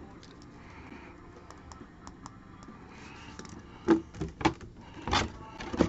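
Hands handling cardboard and plastic packaging: scattered faint clicks and taps, then a quick run of louder clicks and knocks from about four seconds in.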